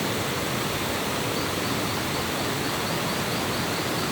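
Stream water rushing, a steady even rush with no breaks.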